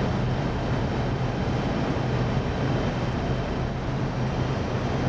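Steady flight-deck noise of an Airbus A320 on final approach: an even rush of airflow with a constant low hum underneath.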